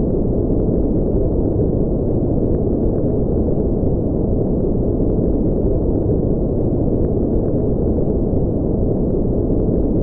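Synthetic spaceship ambience: a steady, deep, brown-noise-like drone with nothing above the low and middle range and a few faint ticks, unchanging throughout.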